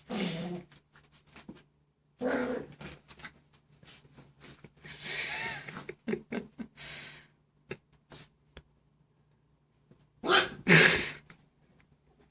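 Cavapoo puppy barking and growling in short bursts, with a quiet pause before a louder burst near the end.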